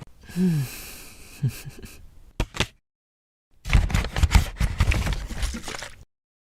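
A string of short, abruptly cut sound effects: a brief falling squeak, a few clicks, then a dense crackling clatter lasting about two seconds that stops dead.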